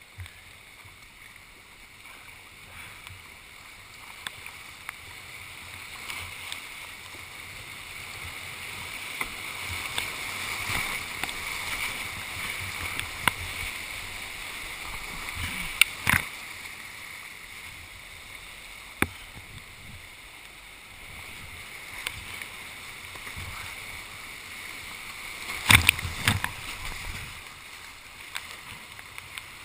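White-water rapids rushing around a kayak being paddled downriver, swelling louder midway. Several sharp knocks and splashes of water and paddle against the boat cut through, the loudest cluster near the end.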